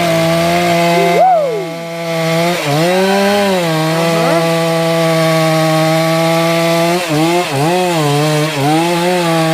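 Two-stroke chainsaw running at full throttle and cutting wood, its engine pitch sagging and recovering several times as the chain loads up in the cut.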